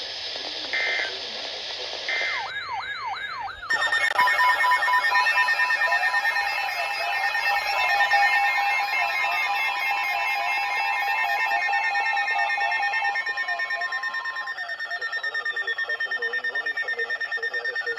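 Several weather alert receivers and alarms going off at once for a new warning. A wailing, siren-like sweep starts about two and a half seconds in. From about four seconds a dense tangle of steady alert tones, beeps, warbles and falling sweeps follows, and it turns into rapid regular pulsing beeps near the end.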